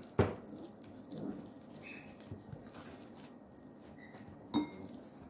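Faint wet squishing of raw chicken thigh being rolled by hand around its stuffing on a wooden cutting board, with two short knocks, one just after the start and one near the end.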